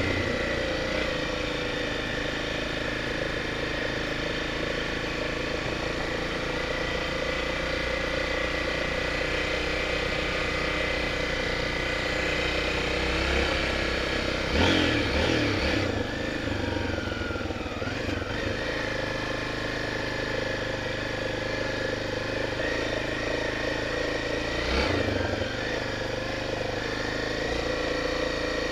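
Honda Tornado 250's single-cylinder four-stroke engine running steadily under way. About halfway through there is a brief louder, rougher moment, after which the engine note falls as it slows. There is another short rough moment near the end.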